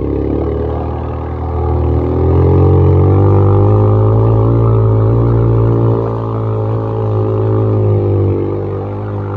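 Quad bike (ATV) engine running under throttle while riding over sand, its pitch rising over the first two seconds and then holding fairly steady, easing off slightly near the end.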